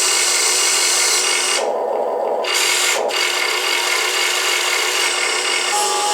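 Electric motors and gearing of a Huina 1580 full-metal RC excavator whirring and grinding as its arm and bucket are driven. The sound changes a few times as functions start and stop: the high part drops out for about a second after a second and a half in, then returns.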